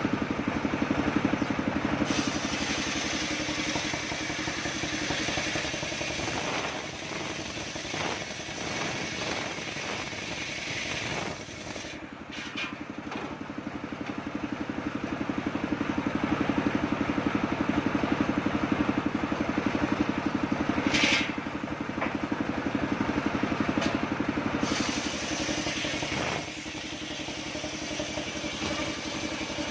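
Engine of a home-built circular sawbench running steadily while its large blade rips coconut-palm wood lengthwise into planks. The sound eases for a few seconds before the middle and is louder through the second half.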